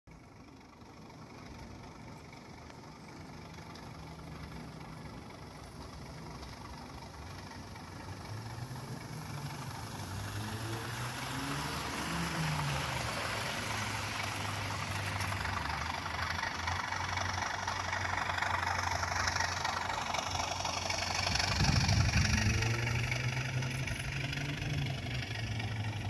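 Model Class 37 diesel locomotive and its wagons running along the track at slow speed: a steady low engine-like hum with a rolling rattle of wheels on rail, growing louder as the train approaches and passes, loudest near the end as the loaded wagons roll close by.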